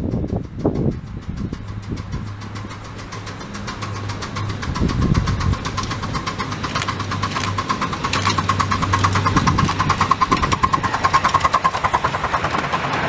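Miniature steam locomotive working a train of wagons, its rapid, even exhaust beats growing louder as it approaches and runs past close by near the end.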